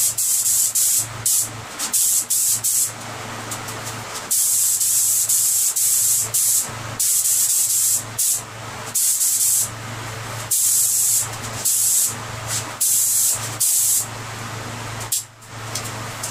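Compressed-air paint spray gun spraying silver base coat onto car body panels. It hisses in repeated bursts, from a fraction of a second to about two seconds each, as the trigger is pulled and released, over a steady low hum.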